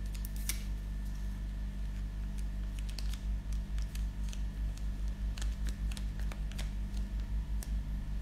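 Steady low hum with faint scattered clicks of a cosmetic jar and its packaging being handled. From about three seconds in, a low rapid pulsing joins the hum.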